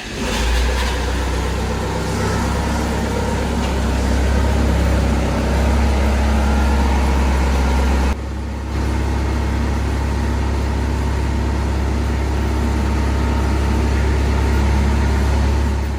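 Bobcat 853 skid steer running steadily with a strong low rumble, its engine freshly resealed with new front and rear main seals. The sound drops briefly about eight seconds in.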